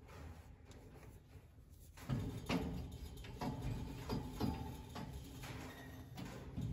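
Handling noise: fabric rustling and a string of irregular soft knocks, starting about two seconds in, as a microfiber towel is folded and tucked around a newborn kitten on a wire rack.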